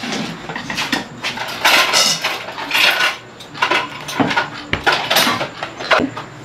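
Dishes and cutlery clattering in a kitchen: a run of clinks, knocks and scrapes of spoons, plates and pots as food is prepared and served, with a few louder clatters among the lighter clicks.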